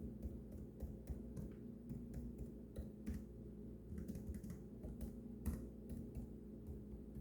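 Typing on the built-in keyboard of a 2022 13.6-inch M2 MacBook Air: an irregular run of light key clicks, several a second, over a steady low hum.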